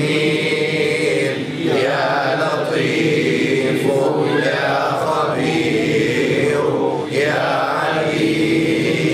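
Male voices chanting an Arabic dhikr litany, a repeated melodic invocation of God's names (Ya Latif, ya Khabir, ya Alim), sung in phrases of a second or two each.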